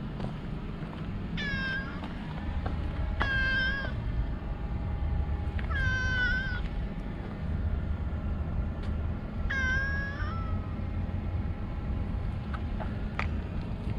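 A domestic cat meowing four times, each a separate call of about half a second to a second, the third the longest. A steady low rumble of background noise runs under the calls.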